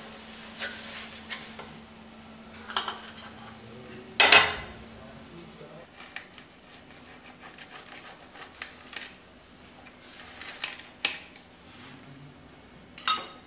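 Cheese masala dosa sizzling faintly on a nonstick tawa as a wooden spatula scrapes under it and lifts it off, followed by light clatter and clicks of the dosa being handled and cut on a plate. Two sharper knocks, one about four seconds in and one near the end.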